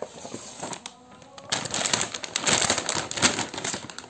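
Plastic packaging being handled and crinkled: a few light clicks at first, then, about a second and a half in, a dense crinkling that carries on.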